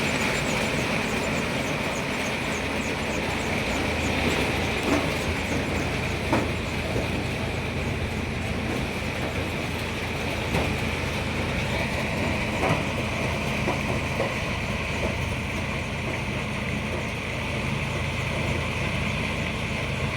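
Corn harvester with husk-peeling unit running steadily, a constant mechanical din with a few sharp knocks now and then.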